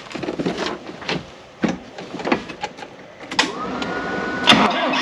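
Tractor starter motor whining up to a steady speed about three seconds in after a few clicks and knocks, with the engine catching near the end, the suspect switch shorted out to bypass it.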